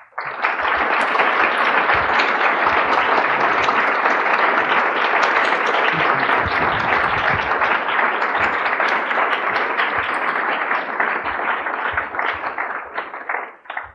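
Audience applauding steadily, thinning out near the end and then cutting off.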